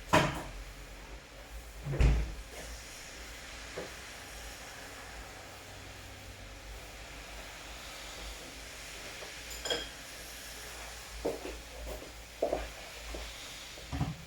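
Steady rainfall hissing, with a series of sharp knocks, about eight in all, the loudest at the start and about two seconds in.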